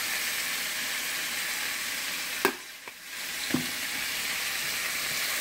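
Diced pork sizzling steadily in a very hot nonstick skillet as it is stirred with a wooden spoon. A sharp knock comes about halfway through, the sizzle briefly drops away, and a lighter knock follows about a second later.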